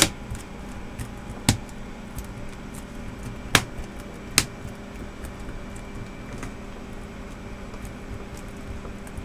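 Replacement keyboard of an Acer Aspire One 532h netbook being pressed down into place. Its plastic clicks and snaps as it seats: a few sharp clicks, the loudest about a second and a half, three and a half and four and a half seconds in, over a steady low hum.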